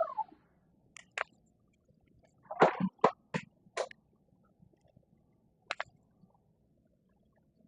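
Scattered metallic clicks and clacks of a Glock G44 .22 pistol being handled during disassembly, to clear a spent case stuck in the chamber. The sharpest run of clacks comes about three seconds in, with a lone click near the end.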